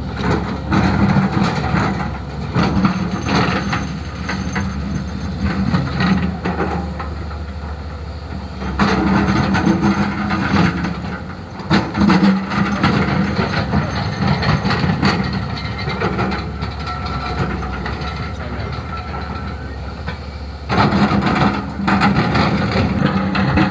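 Hyundai HX220S excavator's diesel engine working under load while digging, growing louder in several stretches as the hydraulics are pushed and easing back in between. Short knocks and clatter run through it.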